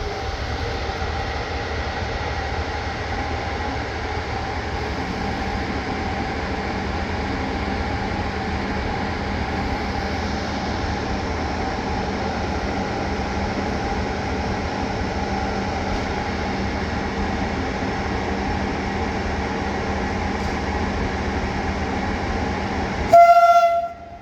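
Electric train hauled by 060-EA electric locomotives running through the station with a steady rumble and a held drone. Near the end comes a short, loud blast of a train horn.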